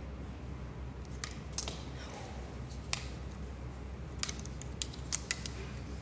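Several sharp plastic clicks and taps from a long-neck utility lighter being twirled and caught in the hand, coming more often in the second half, over a steady low hum.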